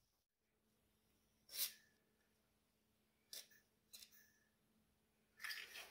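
A few short hisses from an aerosol spray can through a straw nozzle, sprayed at a stuck nut: one about a second and a half in, then two quicker ones near three and a half and four seconds. Otherwise near silence with a faint steady hum.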